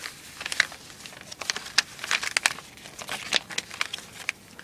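A paper LEGO instruction sheet being folded up by hand, the paper crinkling with many quick, irregular crackles.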